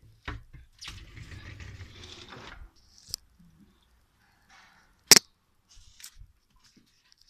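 Rustling and handling noise, then a single loud, sharp snip of nail clippers cutting through a nail about five seconds in, with a fainter click a second later.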